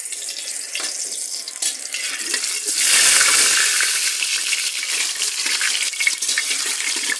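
Potatoes frying in hot refined oil in a large kadai: a steady sizzle that swells loud about three seconds in and keeps going.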